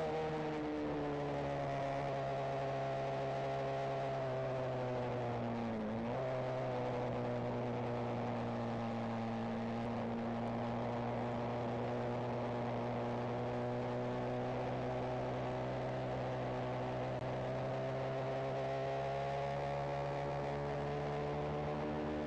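Benelli TNT 125's single-cylinder 125 cc engine and exhaust heard from onboard while riding. The engine pitch falls over the first seconds, dips sharply about six seconds in, holds steady, then rises again near the end as the bike picks up speed.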